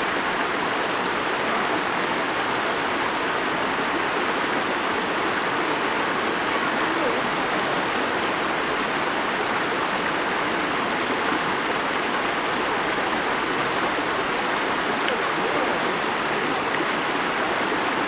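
Shallow stream water rushing steadily over a low rocky step, a constant splashing rush.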